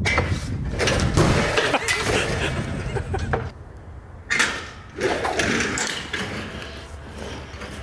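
A trailer-mounted trebuchet with a weight-plate counterweight firing: a sudden clatter from the frame about four seconds in as the rope release is pulled and the arm swings. Before that there are several seconds of loud, rough noise.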